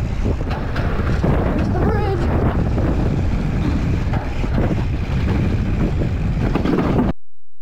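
Wind buffeting the camera microphone over the rumble of mountain bike tyres on a dirt trail at speed, with scattered knocks and rattles from the bike. The sound cuts off suddenly near the end.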